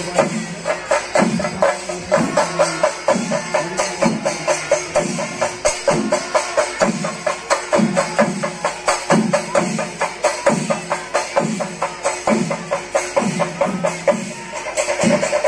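A large chenda melam ensemble of Kerala chenda drums beaten with sticks. Deep beats come about three every two seconds under a dense run of rapid, sharp stick strokes. Near the end the rhythm shifts and a sustained held tone joins in.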